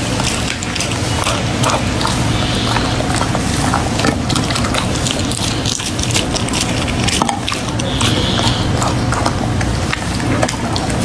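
A dog chewing raw meat close to the microphone: wet smacking and many sharp, irregular clicks of its jaws and teeth.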